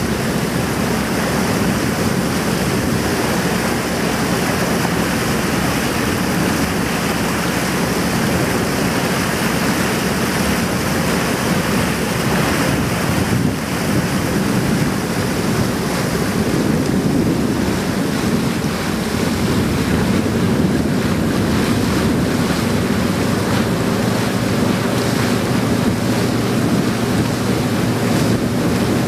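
Boat engine running steadily as a low hum, under wind on the microphone and the rush of water along the hull.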